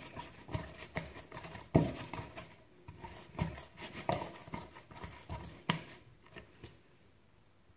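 A hand slapping and beating soft, sticky bread dough in a plastic bowl: irregular slaps one or two a second, thinning out and dying away near the end.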